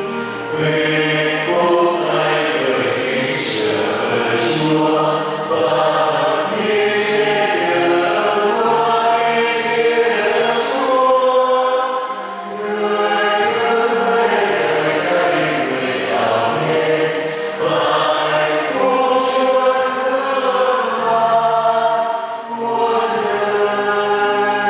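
Sacred singing in a slow, chant-like style: long held sung notes with short pauses between phrases.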